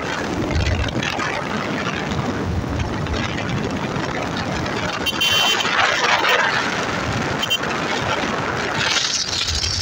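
Moving motorcycle on a wet road: a steady rush of wind and road noise, with tyres running on wet asphalt.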